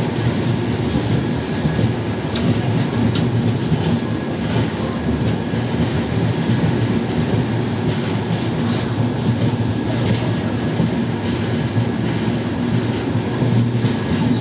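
Indian Railways express train running, a steady low noise of the coach and its wheels on the rails.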